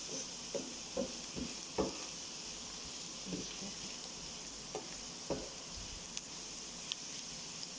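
Sliced onions sizzling in hot oil in a nonstick frying pan, with a spatula stirring and scraping them against the pan. The strokes come quickly in the first couple of seconds, then a few more, spaced apart, over the next few seconds.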